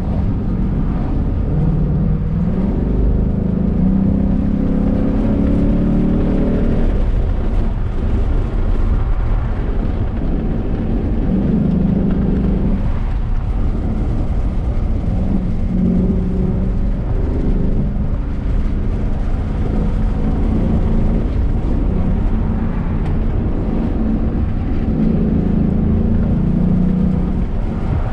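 Car engine pulling hard under spirited driving over a steady low rumble of engine and road noise. The engine note climbs several times as it revs up.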